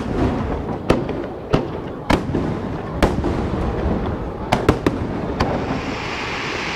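Aerial firework shells bursting in irregular succession: about nine sharp bangs over a continuous low rumble of reports. A hiss builds near the end.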